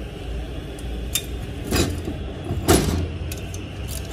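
Metal clinks and knocks as turbocharger housings and V-band clamps are handled and seated, three separate strokes with the loudest a little under three seconds in, over a steady low rumble.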